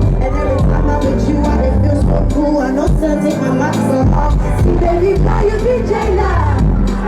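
Loud live concert music: a steady bass line under a sung vocal melody.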